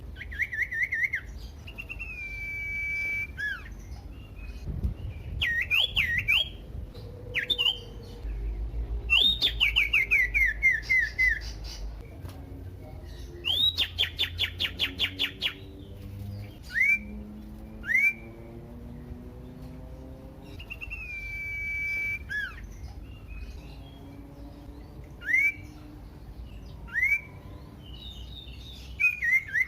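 Common iora singing: a varied run of whistled notes, long held whistles, quick series of short repeated notes (some falling in pitch) and single upslurred calls.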